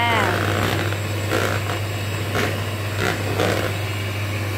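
Nikai electric hand mixer running steadily, its beaters whirring through cake batter in a bowl, with a few sharp knocks as the beaters strike the bowl.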